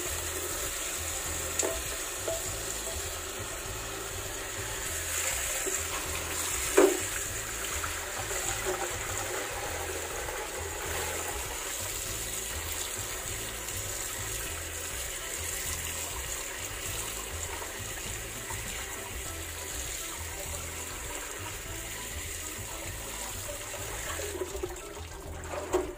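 Tap water running steadily into a stainless steel sink as salted daikon and carrot strips are rinsed by hand in a mesh colander, washing off the salt. A single short knock about seven seconds in; the running water stops near the end.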